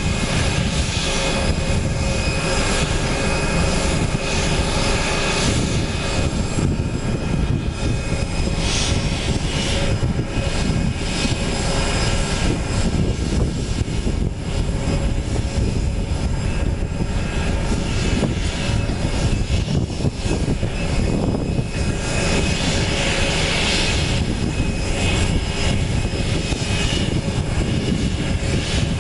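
Airbus A320 jet engines idling steadily on the ground after pushback: a constant low rumble with a steady whine over it.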